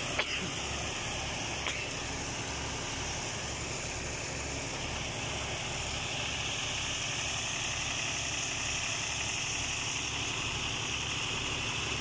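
Fiat 480 tractor's diesel engine running steadily at a constant speed, driving a thresher through its PTO shaft, with an even low rhythmic throb.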